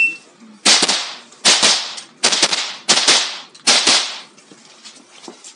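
A .22 rimfire mini rifle firing a string of shots in five sharp cracks about three-quarters of a second apart, each ringing on in the echo of an indoor range. Just before the first shot, the shot timer's start beep ends.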